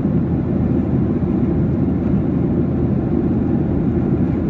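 Boeing 737-800 cabin noise in flight, heard from inside the cabin: a steady, deep rumble of the CFM56 engines and air rushing past the fuselage, with no change in pitch or level.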